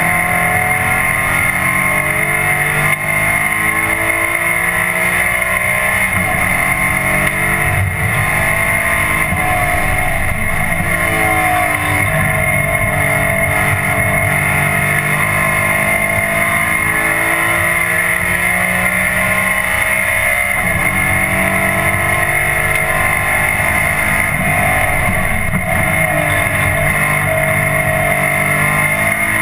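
Audi 4000 quattro race car's engine heard from inside the cabin under hard track driving, the revs repeatedly rising and dropping through gear changes and corners, over steady road and wind noise. The engine was down on power, which the owner puts down to two broken pistons.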